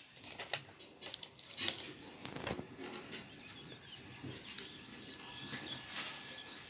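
Paper rustling and being handled, with scattered light clicks and crinkles.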